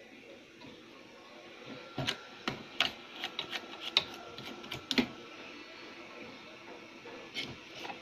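Irregular sharp clicks and taps of small hand tools working on a CRT TV circuit board, bunched between about two and five seconds in, with a faint steady whine for a few seconds in the middle.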